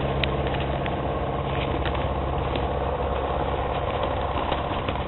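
Steady low mechanical hum, like an engine idling, with a few faint short high sounds over it.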